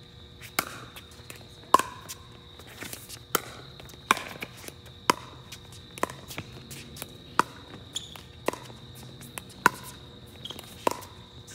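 Pickleball rally: sharp pops of paddles hitting the hollow plastic ball, about one a second, about ten in all, mixed with the ball bouncing on the hard court.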